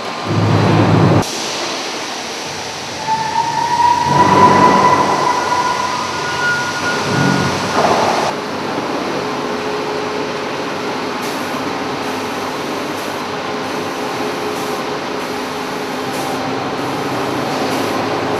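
Concrete block plant machinery running with a steady industrial machine noise. A high metallic squeal is heard for a couple of seconds a few seconds in, with louder surges around it, and the noise settles to a steadier run for the second half.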